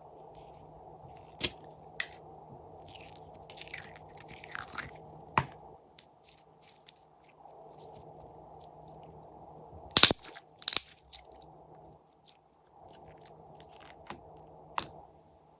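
Slime being handled and mixed, with crunchy crackles, pops and sharp clicks scattered through it and a loud cluster of pops about ten seconds in.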